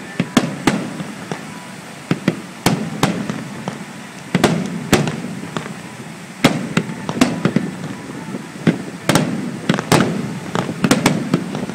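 Aerial fireworks display: a rapid, irregular run of sharp bangs from shells bursting, with a low rumble between them.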